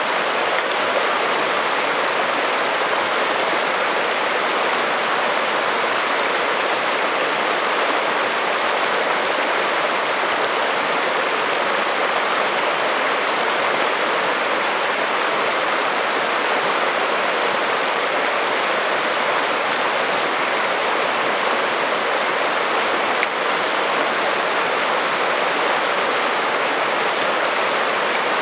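Shallow alpine creek running over a bed of rocks and cobbles: a steady, even rushing with no breaks.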